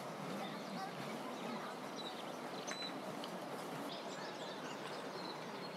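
Outdoor ambience: a steady background hiss with scattered short, high bird chirps, the clearest about two to three seconds in, and a faint murmur of distant voices.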